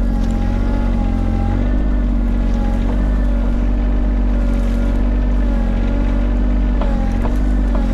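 Mini excavator's diesel engine running steadily while its hydraulics work the brush grabber, its pitch wavering slightly under the changing load.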